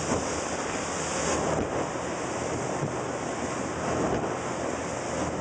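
Wind buffeting the microphone over the steady rush and splash of rough water along the hull of a Sea Ray 185 runabout running just on plane through the chop.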